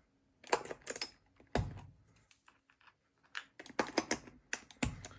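Irregular clicks and clacks from a keyboard with clicky blue Alps switches as keycaps are pulled off and pressed onto the switches, with one heavier thump about a second and a half in.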